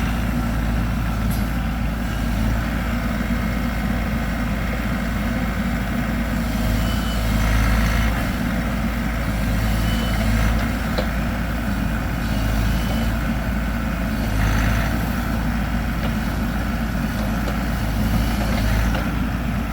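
Bobcat E42 mini excavator's diesel engine running steadily as the machine works, the sound swelling briefly under hydraulic load several times.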